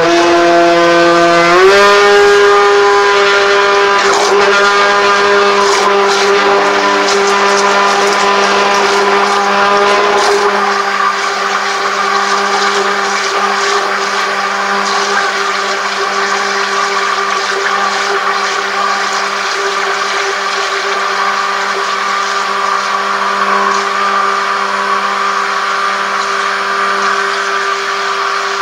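Electric stick blender running in a bowl of thick soap batter, a steady motor whine that rises in pitch about a second and a half in, then holds steady.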